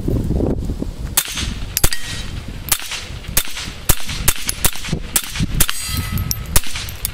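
Walther P22 .22 pistol firing through an oil-filter suppressor: a string of about ten sharp, clanking shots, half a second to a second apart. The rounds are supersonic .22 hypersonic ammunition, so each shot still carries a crack.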